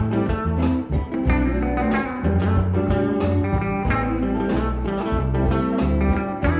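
Background music led by plucked guitar in a bluesy style, over low bass notes.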